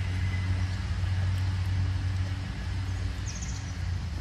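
A steady low engine hum, like a motor idling, holding an even pitch throughout.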